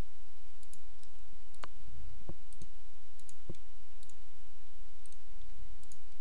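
Computer mouse clicking about four times, between a second and a half and three and a half seconds in, over a steady low hum and a faint high steady tone.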